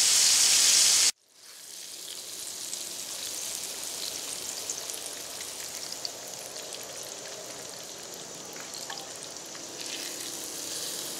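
Breaded flounder frying in oil in a cast iron skillet: steady sizzling with scattered small crackles and pops. A louder hiss cuts off abruptly about a second in.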